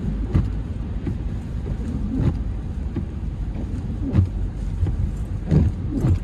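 Car driving on an icy, slushy road, heard from inside the cabin: a steady low rumble of engine and tyres, with a dull thump every second or two.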